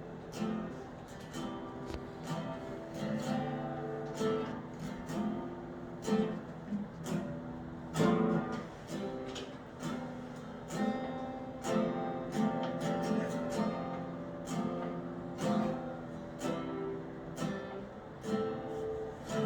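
Acoustic guitar strummed softly in a steady rhythm of sustained chords, playing as background accompaniment.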